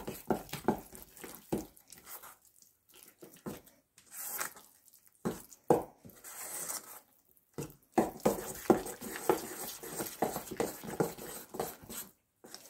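Metal cutlery stirring a thick, wet seed dough in a stainless steel bowl: irregular scraping and squelching strokes with light knocks against the bowl, pausing twice.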